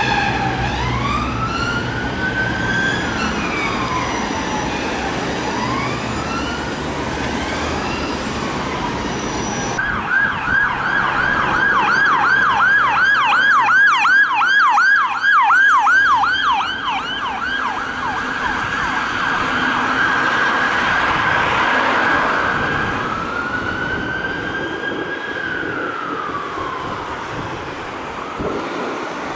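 Emergency vehicle sirens: a slow rising and falling wail with engine and road noise beneath. About ten seconds in it changes abruptly to a fast yelp for several seconds, then goes back to a slow wail near the end.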